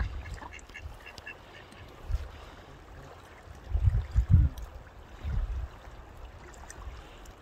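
Mallard ducks quacking, a quick run of short quacks in the first second or so. A few low rumbles come through as well, the loudest about four seconds in.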